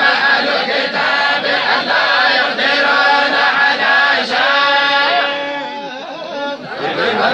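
A large group of men chanting the Quran together in unison, a collective recitation. Near the end a long held note fades and the voices come back in.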